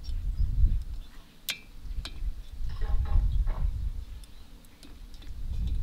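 Light clicks and metal taps from pliers and engine parts handled at a Kohler MV18S twin-cylinder engine, scattered with a small cluster in the middle. Under them runs a low rumble that comes and goes.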